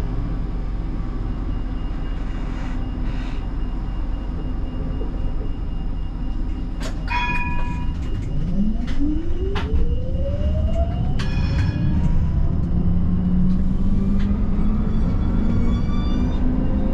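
Siemens Combino tram running with a steady low rumble. About eight seconds in, the traction motors' whine starts and rises steadily in pitch as the tram accelerates, and the sound grows louder. Several sharp clicks with short ringing tones come in the middle.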